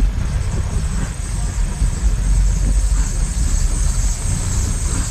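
Wind buffeting a phone microphone in a low, fluctuating rumble, over a steady high hiss of rain falling on wet pavement.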